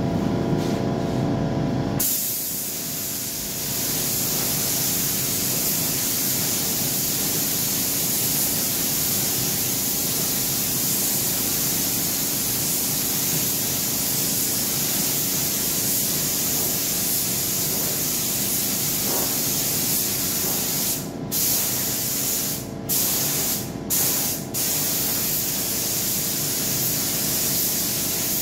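Compressed-air spray gun spraying high-build primer: a steady air hiss that starts about two seconds in and cuts out briefly four times near the end.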